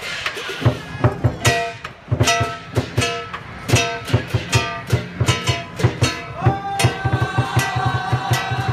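Instrumental music with a fast, steady drum beat and a plucked-string melody; a long held note comes in about six and a half seconds in.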